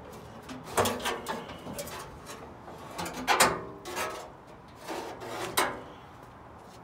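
Loose steel boot-floor panel of a Mazda RX-7 FD shell being lifted out, knocking and scraping against the body: several metallic clanks with short ringing, the loudest about a second in and around three and a half seconds in, then two more near five seconds.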